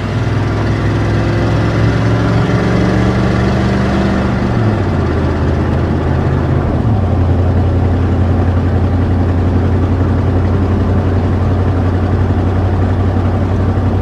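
A vehicle engine running, heard from inside the cab as a steady low hum. Its pitch drops about five seconds in and again about seven seconds in, as if changing gear while driving.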